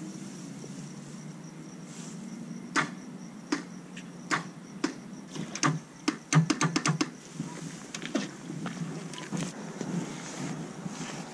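Motorcycle starter switch and relay clicking while the engine fails to crank: single sharp clicks a second or so apart, then a rapid chattering run of clicks about six seconds in. The bike will not start.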